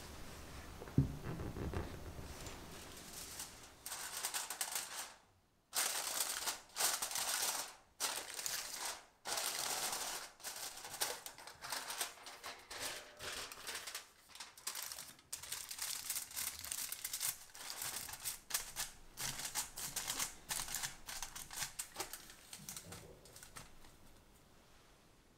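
Aluminium foil crinkling and rustling in many short, irregular bursts as it is pressed and folded around a stainless steel ring cake mold. A soft knock comes about a second in.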